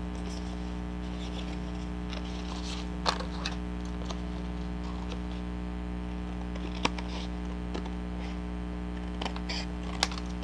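Steady electrical mains hum with a few light clicks and taps from paper and a journal cover being handled.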